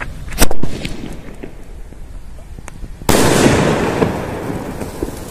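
Large sky shot aerial firework going off: a loud sharp bang about half a second in, then about three seconds in a second burst that crackles and fades over about two seconds.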